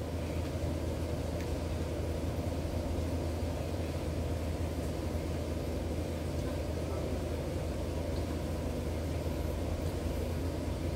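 Steady low hum with a noisy rumble beneath it, like a motor or fan running.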